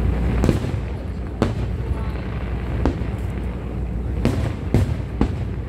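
Aerial fireworks bursting in a show: about seven sharp bangs at uneven intervals over a steady low rumble.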